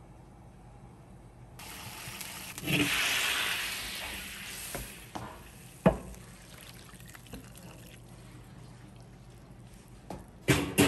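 Hot fish-and-tofu broth pouring from a wok into a ceramic serving bowl, a splashing pour that is loudest for about two seconds and then thins. A sharp knock comes about six seconds in, and a few knocks come near the end.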